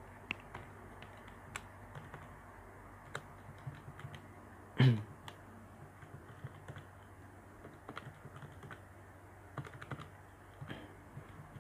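Keys of a Casio scientific calculator being pressed one after another: a run of faint, light clicks, with a brief louder sound about five seconds in.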